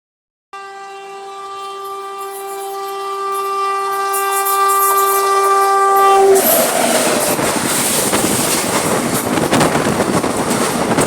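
An express train's locomotive horn sounding one long steady blast that grows louder as the train approaches. About six seconds in the horn stops and the train rushes past at about 110 km/h, with loud rumbling and rapid clatter of wheels over the rails.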